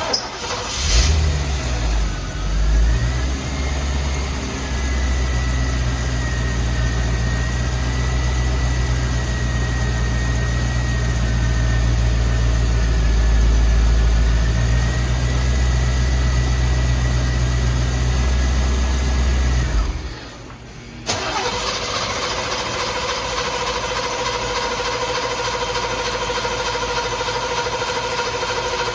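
1986 Corvette's 5.7-litre V8 starting, then idling steadily with a faint whine above it for about twenty seconds before it cuts out suddenly: the stalling fault the car is being diagnosed for. About a second later a steady high-pitched whine starts and carries on without any engine running under it.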